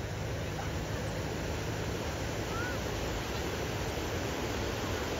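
Sea wind and surf: a steady, unbroken rush of wind and breaking waves.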